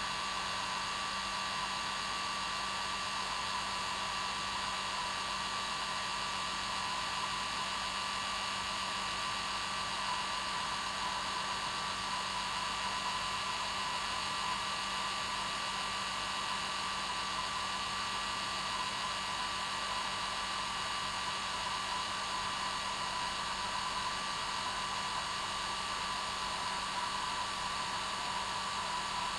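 Hair dryer running steadily on its normal setting, a constant blowing whoosh with a steady whine near 1 kHz and a low hum.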